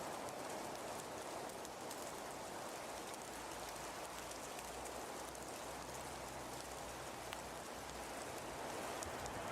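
Steady pattering hiss with scattered light ticks, like precipitation falling on a surface.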